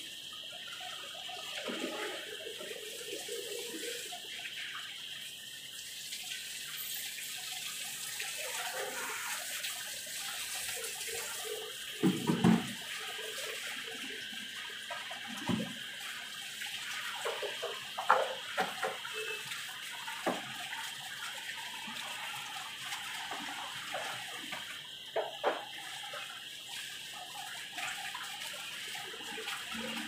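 Steady rush of water, with a few sudden louder knocks scattered through, the loudest about twelve seconds in.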